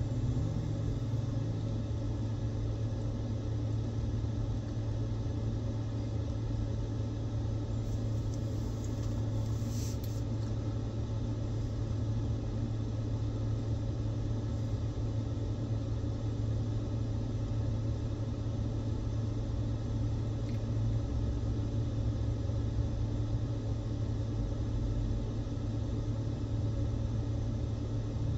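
Steady low mechanical hum and rumble that holds one pitch without rising or falling, with a brief faint hiss about ten seconds in.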